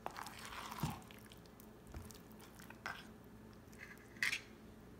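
Metal spoon stirring chunks of cooked beef through a thick, wet spice marinade in a stainless steel bowl: a squelching stir in the first second, then a few short scrapes and clicks of the spoon against the bowl, the loudest near the end.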